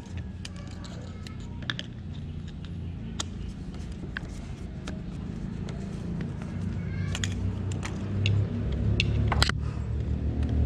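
Small sharp clicks and taps of hands and parts being handled at a motorcycle's throttle body and sensor connector, over a steady low rumble that grows louder near the end.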